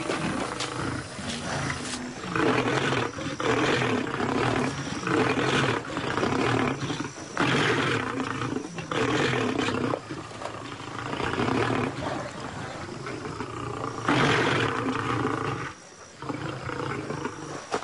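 Lions snarling and roaring in short, rough outbursts one after another, young males squabbling over their share of a wildebeest kill.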